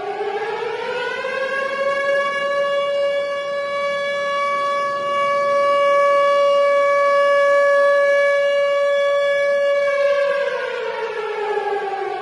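Tornado warning siren winding up in pitch over about two seconds, holding one steady wail, then winding down about ten seconds in.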